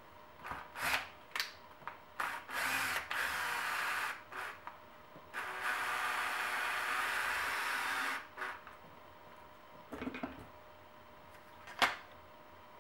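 Makita drill with a hex driver bit running in short bursts to drive screws into plastic: a brief spin about two seconds in, then a steady run of about three seconds from about five seconds in. Handling clicks and taps come before and after the runs.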